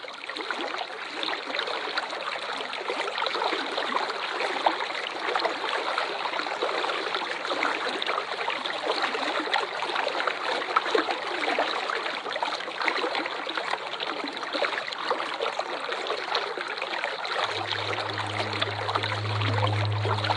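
Steady rushing and splashing of falling water, swelling up as it starts. A low steady hum comes in about three seconds before the end.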